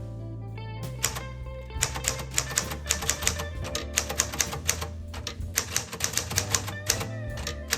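1939 Smith Corona Standard manual typewriter being typed on, keys striking in a quick run of about four a second from about two seconds in. Background music plays underneath.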